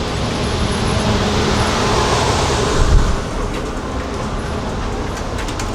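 Steady low rumbling background noise of an indoor shooting range, with a dull low thump about three seconds in.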